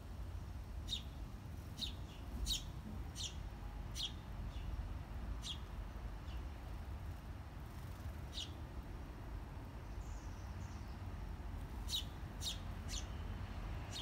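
Small bird chirping: about ten short, high, sharp chirps in irregular bunches, three in quick succession near the end. Under them runs a steady low rumble.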